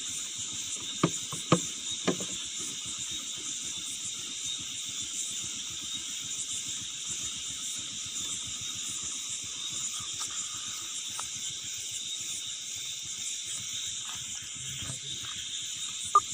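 Steady high-pitched chorus of night insects, with three sharp clicks about one to two seconds in and one more near the end.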